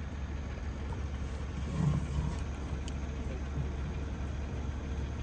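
Steady rushing vehicle noise over a low engine hum, starting and stopping abruptly.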